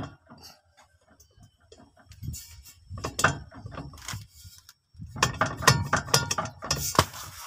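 Toyota Kijang Super propeller shaft being rocked and twisted by hand, its universal joint clanking with play in two spells of quick metallic knocks. The looseness is the sign of a damaged universal joint, the likely cause of the car's clunk when driving slowly.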